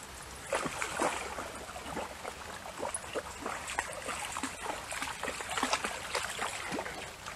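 Water splashing and trickling in short, irregular splashes, a few each second.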